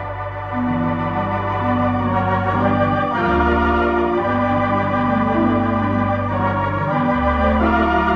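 Instrumental background music: slow, held chords over a sustained bass note, with a slow melody above. The bass changes about three seconds in and again near seven seconds.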